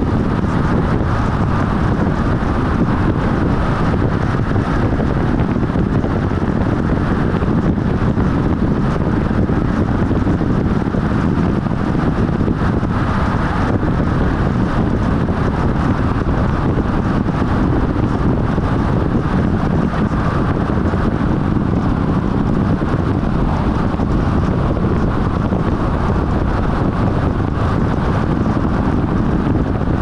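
Steady road and wind noise of a car travelling at expressway speed, an even rushing sound with no engine note standing out and no change in level.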